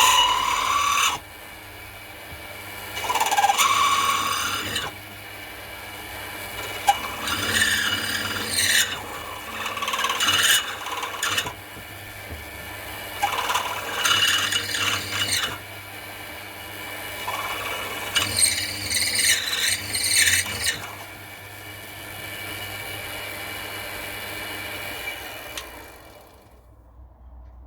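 Mini milling machine running with a steady motor whine while it cuts aluminium, in a series of rasping bursts as the cutter bites. The machine stops near the end.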